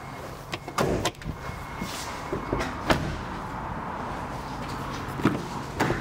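Land Rover Discovery Sport's doors being handled: several sharp clunks and latch clicks, the loudest about three seconds in, with the rear door being opened near the end, over a steady low hum.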